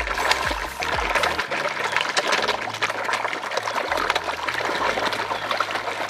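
A shoal of fish thrashing and splashing at the surface of a pond, crowding in a feeding frenzy: a continuous dense spatter of splashes and churning water.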